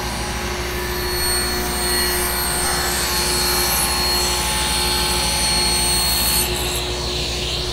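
Table saw running and ripping a strip of 3/4-inch 13-ply Baltic birch plywood, the blade cutting with a steady hiss over the motor's hum. The cut ends about six and a half seconds in, and the saw keeps running freely.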